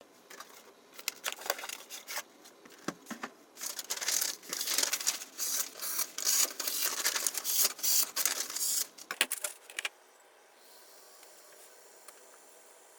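A knife blade making quick, repeated rasping strokes in bursts, a few separate strokes at first, then a dense run. It stops about ten seconds in, leaving only a faint hiss.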